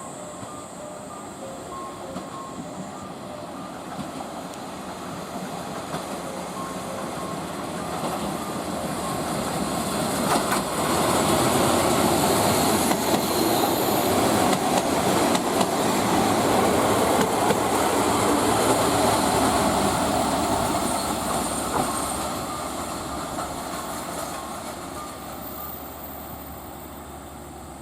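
A train going by on the rails: it comes in gradually, is loudest for about ten seconds in the middle, then fades away. A faint regular ding sounds at the start and dies out after a few seconds.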